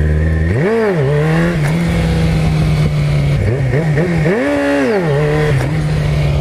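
Yamaha R6 sport bike's inline-four engine running steadily under the rider, revved up and straight back down twice: once about a second in and again a little past the middle.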